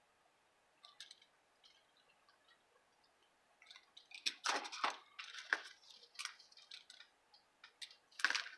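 Paper and cardstock being handled at a craft table: a few light taps and clicks, then crinkly rustling about four to six seconds in and a short burst of it near the end.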